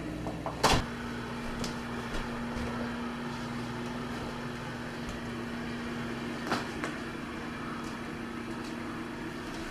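A door shutting with a sharp knock just under a second in, then quiet room noise with a steady low hum and a few light clicks; a second knock comes about six and a half seconds in.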